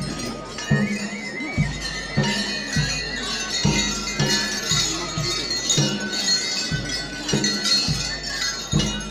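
Live folk drum-and-wind music: deep drums struck in a steady beat of one or two strokes a second, the loudest sound, under a high wavering melody from a wind instrument and bright metallic ringing.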